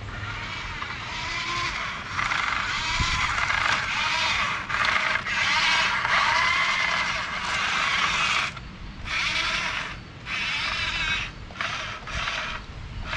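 Electric motor and plastic gearbox of a Huina 1540 RC dump truck running as it drives over gravel, loudest as it passes close. About two-thirds of the way through the noise breaks into short stop-start bursts as it drives off.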